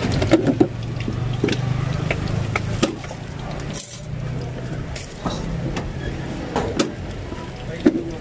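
Scattered metal clinks of cooking utensils against pans and dishes at a food cart, over the steady low hum of a motor vehicle engine. The hum drops out briefly just before four seconds in.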